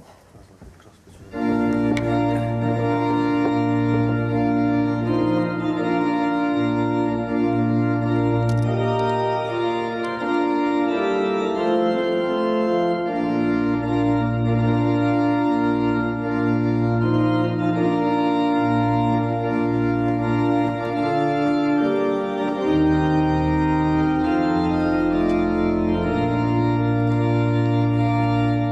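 Church organ playing slow, sustained chords over held bass notes. It comes in about a second and a half in, the chords changing every second or two, and fades out at the end.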